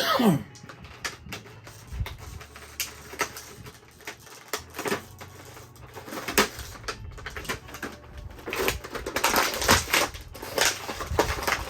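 Hard plastic action-figure parts and packaging being handled: irregular sharp clicks and snaps, with a denser spell of plastic crinkling and crackling near the end. A brief falling sound opens it.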